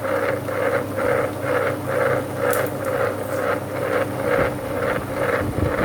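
Small 2-litre tabletop wet grinder running, its drum turning the stone rollers through soaked rice and lentils being ground into batter. A steady motor hum with a rhythmic rolling swish about twice a second.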